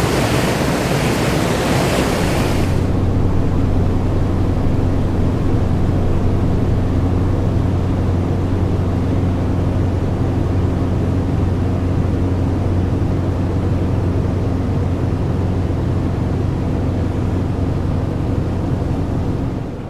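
Motor launch underway: its engine running with a steady low drone while water rushes along the hull. A loud hiss of water dominates for about three seconds, then falls away suddenly, leaving the engine drone and a softer wash.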